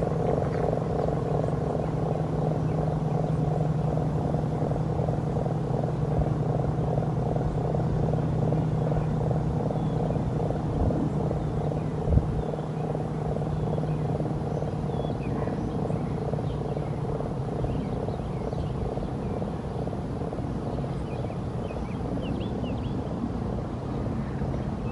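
ACA P-50 outdoor warning siren sounding a steady low tone with a fast, even throbbing pulse. It slowly dies away over the last several seconds. There is a single brief thump about halfway.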